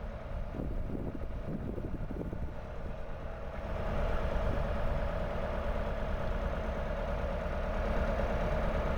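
A boat's engine running with a steady drone, growing louder about four seconds in.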